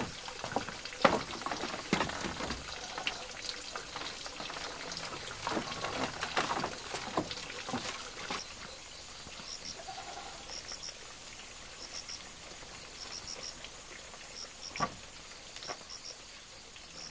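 Rustling and knocking of woven bamboo handled against a bamboo wall as a round woven tray is hung up, busiest in the first half. Then it goes quieter, with faint high chirps repeating in twos and threes and one sharp knock.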